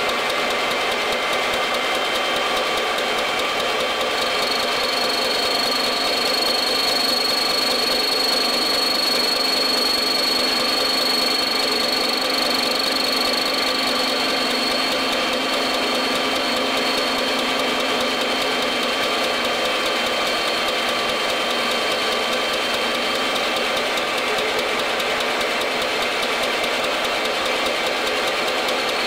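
Milling machine running steadily, its spinning cutter facing the top of a metal valve guide-cover held in the vise. A high, steady whine comes in about four seconds in and fades out a little past the middle.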